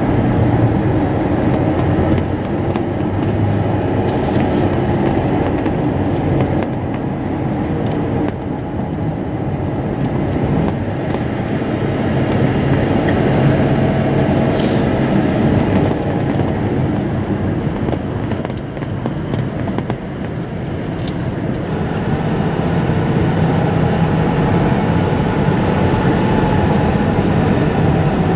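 Steady rumble of a moving vehicle, engine and road noise, easing off about two-thirds of the way through and then building again.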